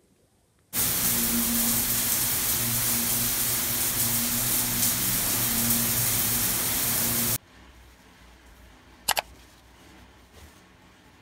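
Handheld shower head spraying water against tiled walls: a steady hiss with a low hum beneath, which starts abruptly about a second in and cuts off sharply at about seven seconds. After that the sound is much quieter, with one brief high-pitched squeak near the end.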